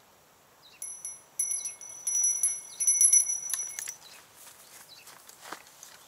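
Small bite-alarm bell on a bottom-fishing rod jingling in a string of quick shakes for about three seconds, then stopping: a fish is biting.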